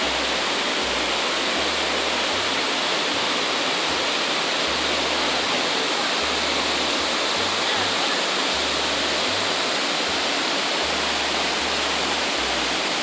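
Burney Falls, a waterfall with spring water pouring out of the rock face, making a steady, loud rush of falling water.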